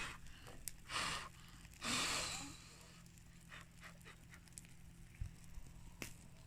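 Two strong breaths of air, about a second apart, the second longer, over the faint scattered crackle of a wood fire.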